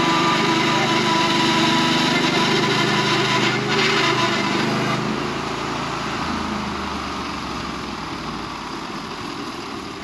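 Portable sawmill's gas engine running steadily, then slowing down to a lower idle from about halfway through, with a brief clatter a few seconds in.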